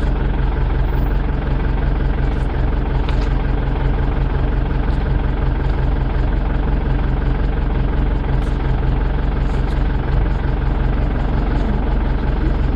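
Vehicle engine idling steadily, an even low hum with no change in speed.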